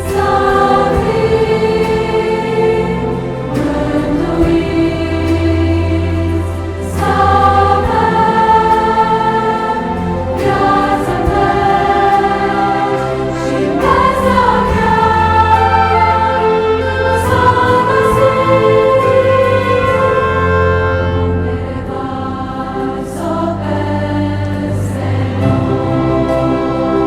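Choir singing long held notes of a Christian worship song over instrumental accompaniment.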